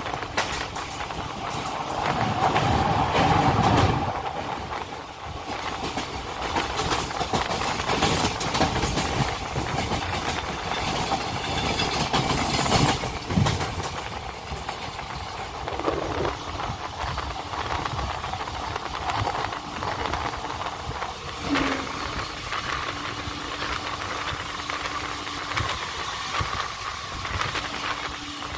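Passenger train running at speed, heard from inside the coach at an open barred window: rumble and rushing air, with the wheels clattering over rail joints. A louder surge comes a few seconds in, and a steady hum sets in about halfway through, breaking off briefly a couple of times.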